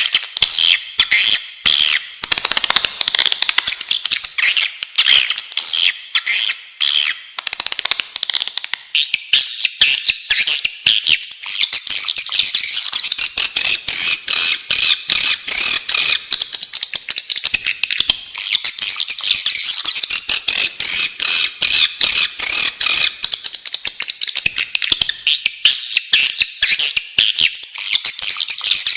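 Swiftlets twittering: a dense, continuous stream of rapid, high chirps packed closely together, the calls sitting higher in pitch from about nine seconds in. It is the swiftlet call recording used as a lure to draw swiftlets into nest houses.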